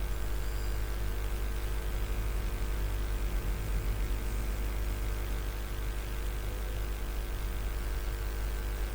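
Steady low electrical hum with an even hiss and a few constant tones, unchanging throughout, with no distinct clicks or knocks.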